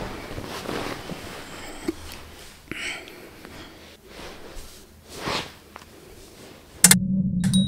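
Clothing and sofa cushions rustling as a person sits down and settles, with small clicks and a couple of breaths or sniffs. Near the end intro music cuts in abruptly with a sharp hit and a steady low drone.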